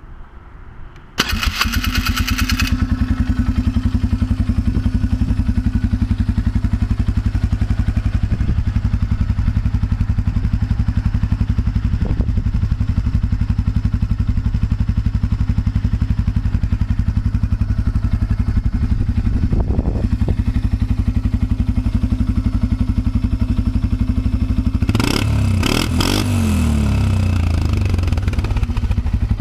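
Polaris Sportsman 500 H.O. ATV's single-cylinder four-stroke engine started with the key: it cranks and catches about a second in, then idles steadily and loud through a modified stock muffler with a 2-inch exit that gives a deep exhaust note. The note wavers briefly near the end.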